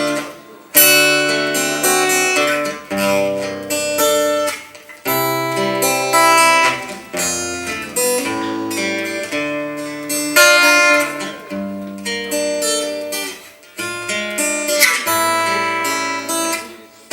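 Instrumental music led by an acoustic guitar playing strummed and plucked chords, each struck sharply and left to ring.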